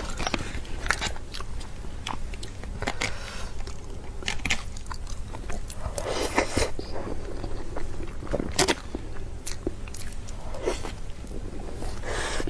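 Close-miked eating of meat: biting and chewing, with irregular crunchy clicks and a few louder bites.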